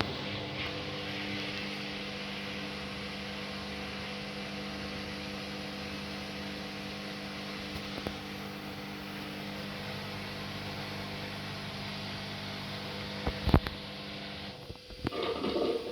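Haier HW100-1411N washing machine running: a steady motor hum with hiss that holds at one pitch. There is a sharp knock about thirteen and a half seconds in, and a second later the steady running sound stops.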